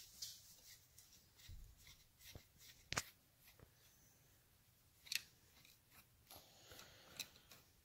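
Mostly near silence with a few faint clicks and taps, the sharpest about three seconds in: a long-shafted hand tool working the screws of the Triumph four-speed gearbox's inner cover while it is taken off.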